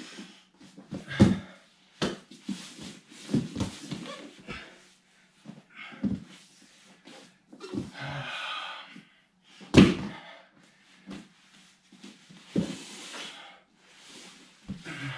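A body thudding and scuffing on foam floor mats in irregular bursts during solo ground-escape grappling drills, the loudest thuds about a second in and near ten seconds in.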